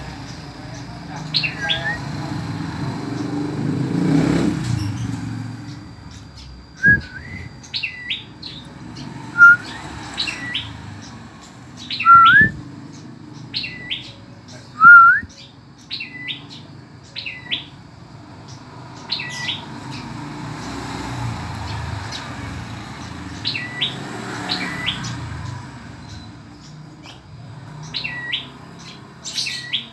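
Caged red-headed, grey-breasted prenjak, a small songbird, calling in loud, sharp chirps: short upward-sweeping notes, often in quick pairs, repeated every second or so, with a few louder rising notes in the first half.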